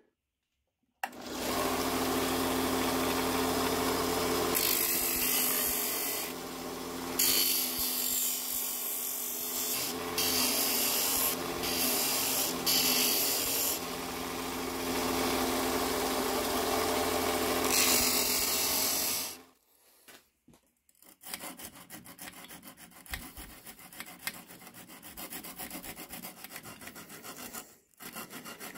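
A Scheppach bench grinder runs with a steady motor hum while a rusty steel bayonet blade is pressed against its abrasive wheel. The grinding noise rises and falls as the blade is worked, then cuts off suddenly past the middle. After a short pause, sandpaper is rubbed by hand over the bayonet's crossguard in quick, even back-and-forth strokes.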